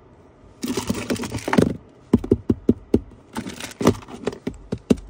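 Crinkling plastic bag and clicking keys as a hand handles a car key fob wrapped in plastic on the console tray: a rustle of plastic about half a second in, then a run of sharp clicks and taps.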